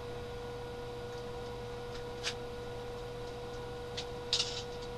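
A steady electrical hum with a thin high tone running through it. A few light clicks break in, once a little past two seconds, then a small cluster of them about four seconds in.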